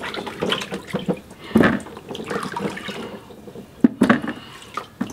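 Water sloshing and splashing as hands rub and shift peeled potatoes in a plastic bucket of water, rinsing them after machine peeling, with a few sharp knocks of potatoes against each other and the bucket.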